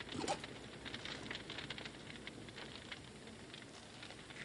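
Fire crackling under a cauldron, with faint, irregular small pops and snaps.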